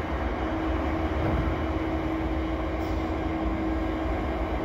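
Canadian Pacific SD70ACU diesel-electric locomotive, with its EMD 16-710 two-stroke V16 diesel, idling at a standstill: a steady low engine rumble with a constant hum over it.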